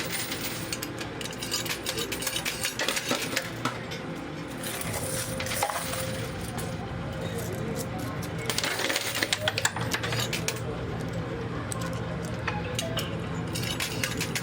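Quarters clinking and clattering in a coin pusher machine, in clusters of quick metallic clicks over a steady arcade hum.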